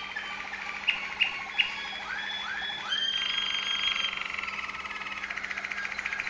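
Waterslager Malinois song canary singing: a few short sharp notes, then three swooping notes, then a held high whistle running into a fast rolling trill.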